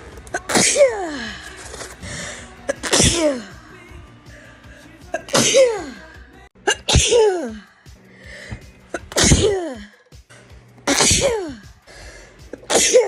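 A person sneezing over and over, seven sneezes about two seconds apart. Each is a sharp burst that ends in a voiced 'choo' falling in pitch.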